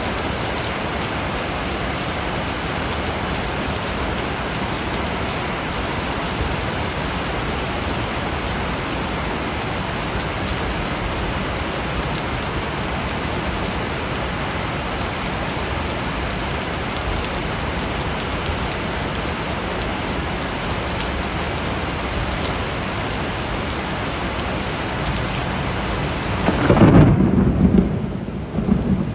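Steady, heavy rain hissing, then near the end a loud low rumble of thunder, after which the rain's hiss becomes much softer.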